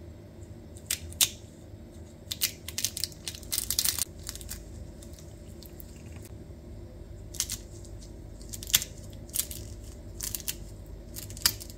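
Crisp, many-layered homemade baklava crunching, with scattered bursts of sharp crackles that come thickest between about two and four seconds in and again near the end. The crackle is the sign of thin pastry layers baked crisp and separating.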